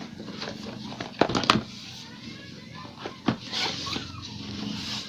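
Cardboard box lid being lifted open by hand: a couple of sharp knocks about a second in, another near three seconds, then a scraping rustle of cardboard and plastic.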